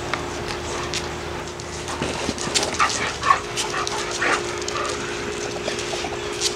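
American bully dogs play-fighting: short yips and whimpering calls with scuffles and sharp clicks, bunched in the middle and loudest about three seconds in. A steady low hum runs under it.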